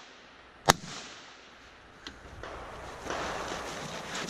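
A single AR-15 rifle shot about 0.7 seconds in, sharp and loud. A small click follows near two seconds, then scraping and rustling of the shooter scrambling up and crawling across the gravel floor.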